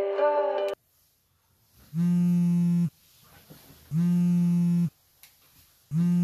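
Mobile phone on a bedside table buzzing with an incoming call: three steady buzzes about a second long, one every two seconds. Plucked-string music cuts off abruptly under a second in.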